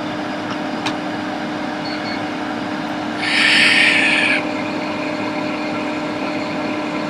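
Steady fan hum of bench equipment with a constant low tone under it. About three seconds in, a short hiss lasts a little over a second.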